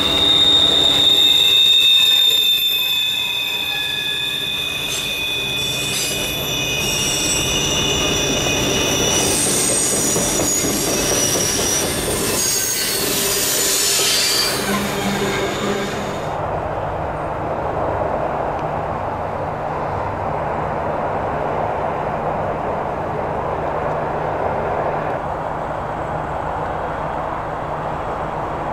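Freight train cars rolling past on a curve, their wheels squealing in several high, wavering tones over the rumble of the cars. About 16 seconds in the squeal cuts off and a steady, even rushing noise follows.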